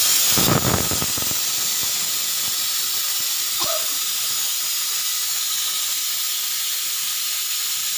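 Pressure cooker letting off steam through its whistle valve: a loud hiss, strongest in the first second, then settling into a steady hiss.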